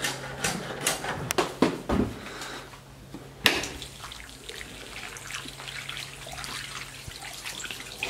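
Rustling and cracking of twigs and branches as people push through undergrowth, with several sharp snaps in the first two seconds and another a little later, then a softer steady rustle. A faint steady low hum runs underneath.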